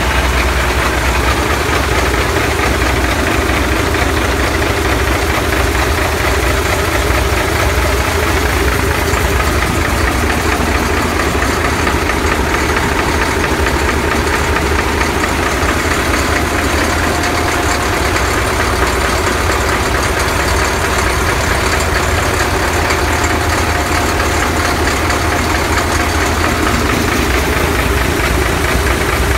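Winton diesel marine engine running steadily, heard up close in the engine room: a loud, even, deep drone with no change in speed.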